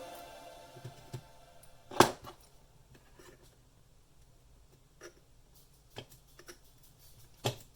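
Scattered short clicks and knocks of ThinkPad W520 laptop parts and tools being handled and set down during disassembly, the loudest about two seconds in and another near the end.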